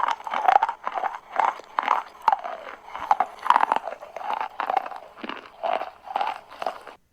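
Chalk being bitten and chewed close up: repeated crunches, about two a second, that cut off abruptly near the end.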